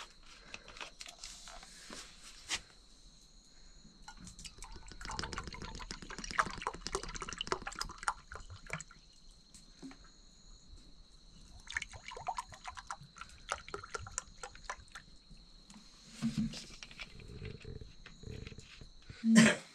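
A cat eating from a dish: two spells of quick small clicks of chewing and lapping, over a steady high cricket drone, with one sharp knock near the end.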